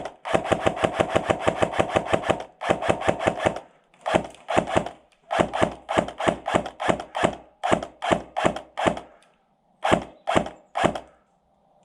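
Airsoft rifle firing: two long rapid full-auto bursts in the first few seconds, then a string of shorter bursts and quick single shots, ending with three spaced shots near the end.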